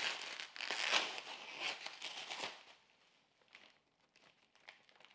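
Plastic bubble wrap crinkling as it is pulled off a cardboard-wrapped package, loudest about a second in and dying away after two and a half seconds, then a few light rustles and clicks of the cardboard being handled.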